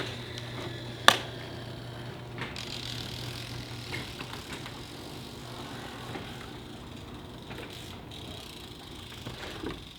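Road bicycle sounds: a single sharp click about a second in, then a steady hiss of riding with faint ticks.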